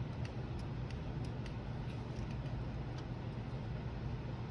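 Faint scattered light clicks and ticks from hand-handling laptop parts and tools, over a steady low hum.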